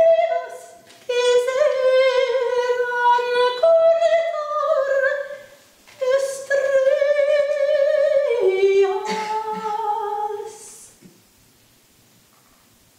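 Soprano singing several slow, held phrases with vibrato, split by short breaks; the voice stops about ten and a half seconds in.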